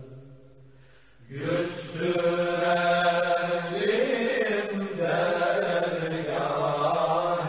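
A man's voice chanting a slow religious melody in long held notes. A phrase dies away, and a new one begins about a second in, with a few melodic turns partway through.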